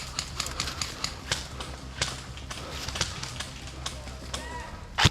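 Footsteps, about two or three a second, with knocks and rattles of carried gear as the airsoft player moves, over a steady low rumble. A single loud sharp crack near the end.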